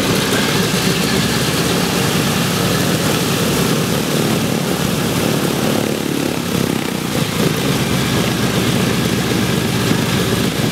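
A single Wright R-1820 Cyclone nine-cylinder radial engine of a Boeing B-17 running steadily at low power just after start-up, with its propeller turning and the other three engines not yet started.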